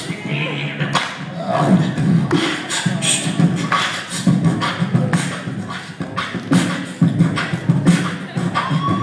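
Vocal percussion (beatboxing) into a handheld microphone, amplified: a steady rhythm of sharp drum-like clicks and hisses over a pulsing low vocal bass.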